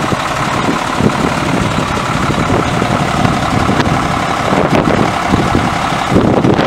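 Peterbilt 379 semi tractor's Cummins ISM 10.8-litre inline-six diesel idling steadily, with wind buffeting the microphone near the end.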